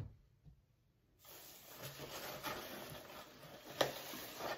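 Crinkle-cut shredded paper filler rustling and crackling as hands dig through it in a box, starting about a second in. A soft knock comes right at the start.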